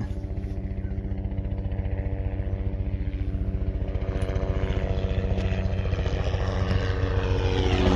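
Helicopter flying overhead: a steady engine hum with a fast, even rotor pulse, growing gradually louder as it nears.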